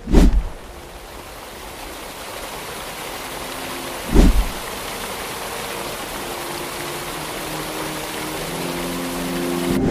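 Two deep cinematic boom hits about four seconds apart, each dropping in pitch, over a rushing noise that slowly swells. Faint sustained music tones come in under it from about three seconds in.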